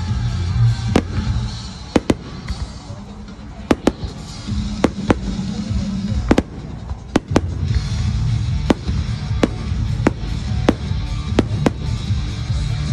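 Aerial fireworks shells bursting, one sharp bang every half-second to second at an uneven pace, with music playing underneath.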